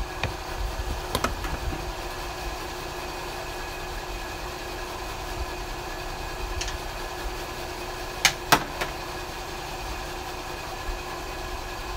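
Steady mechanical hum of running machinery, made of several held tones over a low rumble. A few light clicks come about a second in, and two sharp clicks close together a little past eight seconds.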